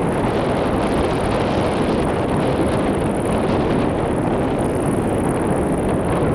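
Wind blowing across the microphone: a steady, loud rushing noise without breaks.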